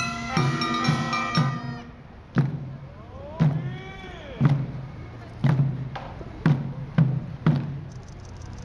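Ceremonial music of held pitched tones over a steady beat stops about two seconds in. A large barrel drum is then struck seven times, about once a second, the last three strokes coming twice as fast. A single pitched call rises and falls between the early strokes.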